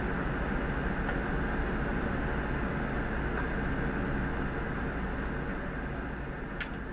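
Fire truck engine running steadily, a low even drone with a hum underneath. A short click sounds near the end, and the drone begins to fade.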